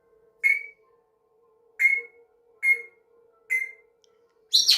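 African grey parrot giving four short, high squeaks about a second apart, then a louder, harsher squawk near the end. The sounds are a mimicked squeaky toy.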